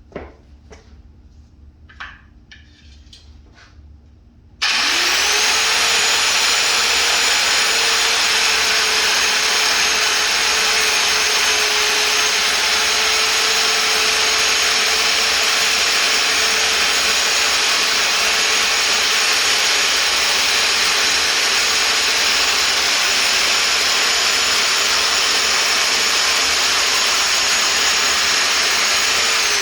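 A few light knocks and clicks, then about four and a half seconds in an electric power tool starts abruptly and runs at a steady pitch with a high whine, its motor starting to wind down right at the end.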